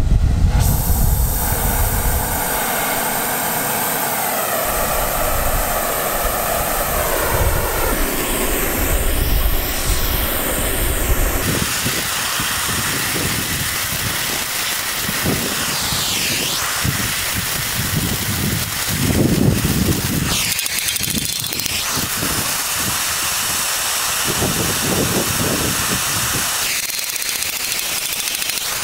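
Oxyacetylene torch with a number 6 rosebud heating tip burning with a steady loud hiss, its flame playing on steel to soften it for bending.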